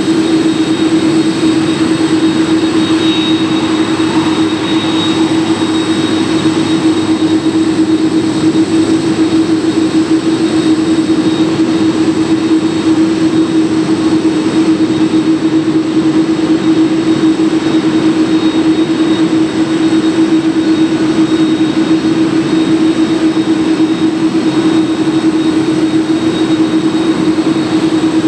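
Jet engines of a Boeing 747-400 running steadily at idle: a loud, constant low hum with a faint, steady high whine above it.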